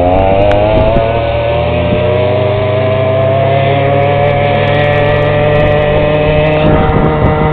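Small 49cc motor-scooter engine revving up, its pitch climbing over the first second, then running at a steady high speed.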